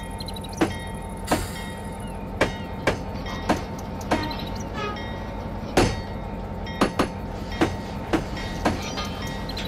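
A dozen or so sharp knocks at a loose, uneven pace of roughly one every half second to a second, over a steady hum with a constant high tone.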